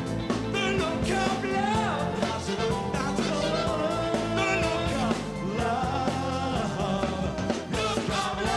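Live pop band with a male lead vocal: a man sings a held, wavering melody over drums, bass, electric guitar and keyboards.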